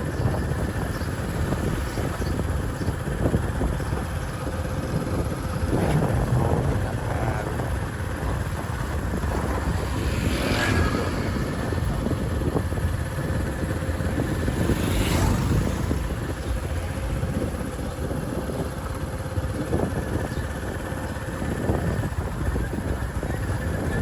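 Steady road-traffic noise with a heavy low rumble, motorbikes and other vehicles running. Two louder vehicles pass about ten and fifteen seconds in.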